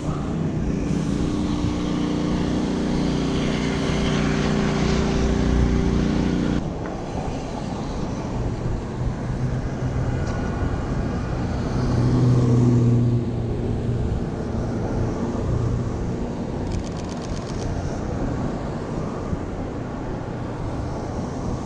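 City street traffic: vehicle engines running, with a steady engine hum that cuts off suddenly about six and a half seconds in, and another swelling a few seconds later.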